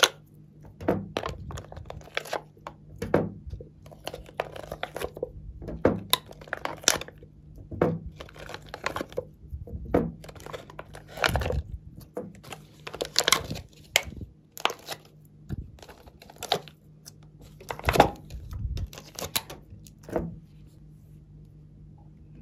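Thin clear plastic blister tray crinkling and crackling in irregular bursts as soft slime pieces are peeled out of its cups. The bursts stop near the end.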